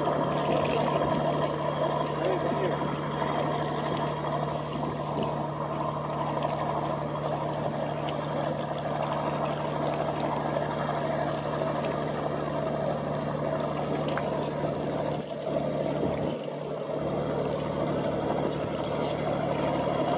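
A riverboat's diesel engine running steadily: a constant low hum with a rumble of overtones over the wash of water, dipping briefly about fifteen seconds in.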